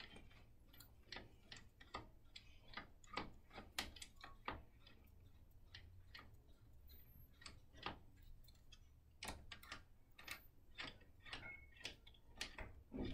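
Faint, irregular clicks of a 5 mm T-handle Allen key turning and re-seating in the heads of steel bolts as an aluminium side clamp is snugged up on a wheelchair frame.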